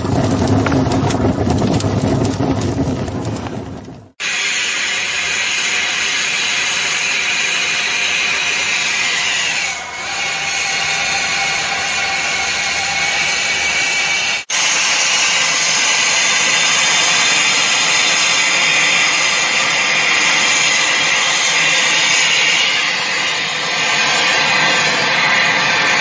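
A brazing torch flame hisses steadily as it heats a copper line joint for brazing. Before it, a different sound fades out about four seconds in.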